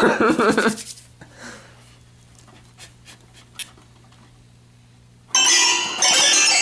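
Laughter for the first second, then a few soft clicks over a steady low electrical hum, then loud music starts suddenly about five seconds in.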